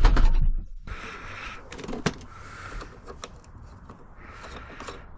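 Handling noise from a plastic hose fitting being pushed and worked against a pressure washer's water inlet: a heavy knock at first, then scattered clicks and scraping rubs.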